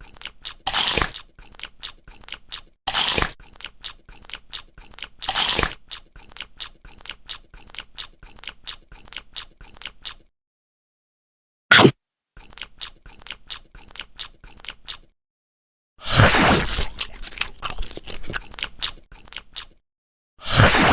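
Close-miked crunchy food being bitten and chewed: a stream of quick crunching clicks, with louder bites about a second in, at about three and five seconds, and a longer crunching bite near the end. Two short breaks of complete silence fall in the middle.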